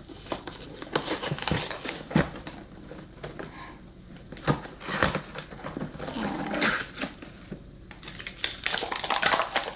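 Cardboard box of frozen sausage patties being torn open by hand and the plastic pouch inside pulled out: irregular rustling, crackling and tearing, with a few sharper snaps.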